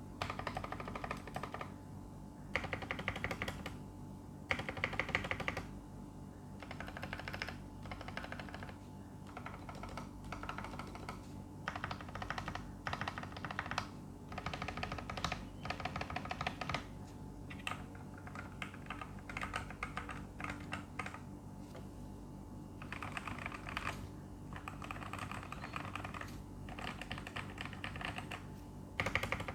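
Typing on a mechanical keyboard with Outemu Orange tactile switches lubed with Krytox 205g0/105, each key bottoming out. The keystrokes come in fast runs broken by short pauses.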